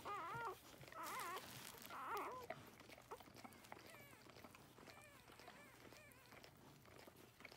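Newborn Golden Retriever puppy crying: three loud, wavering, high-pitched squeals in the first two and a half seconds, then fainter, higher cries from about four to six seconds in.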